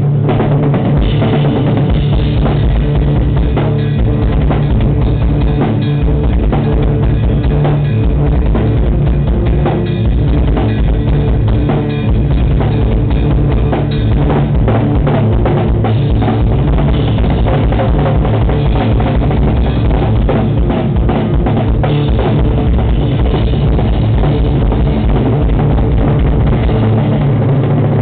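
Math rock band playing live, with a busy drum kit (kick, snare and cymbals) loudest over electric guitar.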